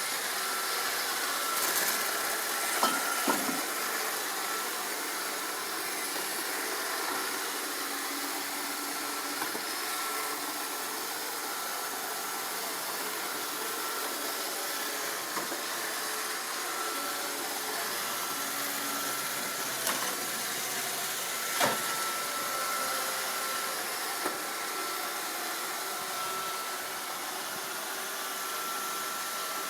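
iRobot Roomba 531 robot vacuum running with a steady whir and a thin whine, broken by a few sharp knocks.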